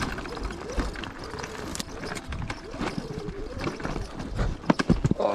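Sur-Ron electric dirt bike's motor whining, its pitch rising and falling with the throttle, amid knocks and rattles of the bike over rough ground, with a cluster of sharper, louder knocks near the end.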